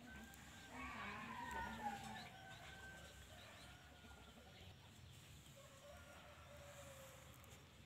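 Faint chickens clucking, with a rooster crowing.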